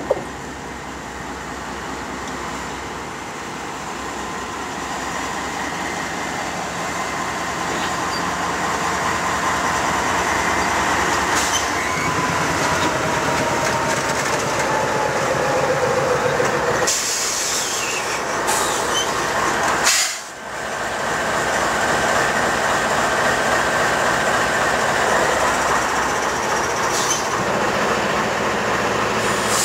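Norfolk Southern GE diesel-electric locomotives, a D9-40CW and an ES40DC 'GEVO', pulling a freight train slowly past, their engine rumble and wheel noise growing louder as the lead cab comes alongside, with a steady high whine over it. The sound dips briefly about two-thirds of the way through.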